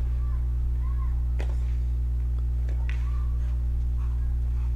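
Tennis ball struck with rackets in a baseline rally on a clay court, sharp hits roughly every second and a half, over a steady low electrical hum.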